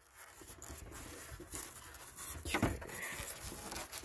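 Hand rubbing and pressing on a taillight assembly's plastic housing and foam gasket: faint scraping and rustling with a few light knocks, the clearest about halfway through.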